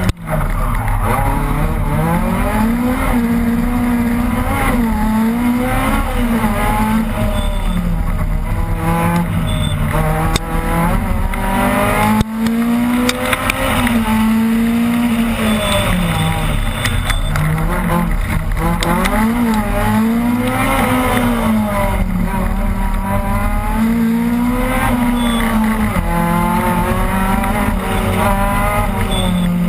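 Opel Kadett rally car's engine heard from inside the car, revving up hard and dropping back again and again as the gears change at speed. There is a single sharp knock about twelve seconds in.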